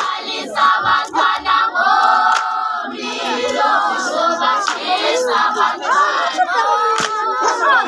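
A chorus of girls singing a Zulu dance song together, with handclaps keeping the beat.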